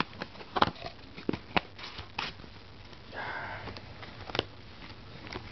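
Handling of trading-card box packaging: a handful of sharp clicks and small rustles, with a short sniff-like hiss about three seconds in.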